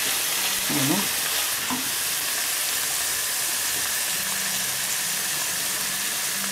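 Diced ham and onions sizzling steadily in hot oil in a frying pan, stirred with a wooden spoon.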